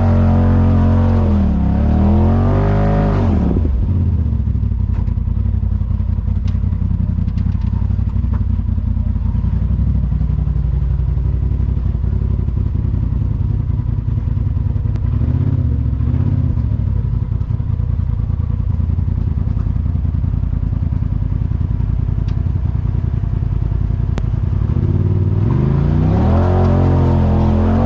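Polaris RZR side-by-side's engine revving, its pitch dipping and climbing over the first few seconds, then running at low revs with a steady pulse, and revving up again near the end.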